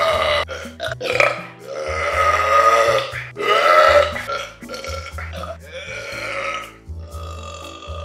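A run of long, drawn-out human burps, one after another, the loudest in the first half and weaker ones later, over background music with a stepping bass line.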